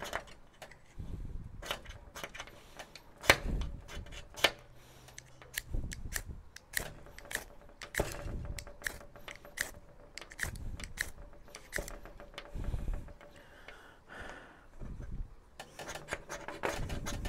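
A fire steel (ferrocerium rod) struck over and over with its scraper, a short rasping scrape each time at irregular intervals, with some dull knocks. The rod is brand new and still coated, and the strikes are not lighting the olive-oil-soaked cotton pad.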